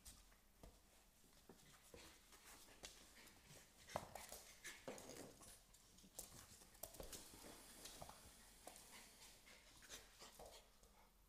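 Two puppies, an American Staffordshire Terrier and a Staffordshire Bull Terrier, play-wrestling on a wooden floor: faint scuffling and scattered taps of paws and claws on the boards, with a sharper knock about four seconds in.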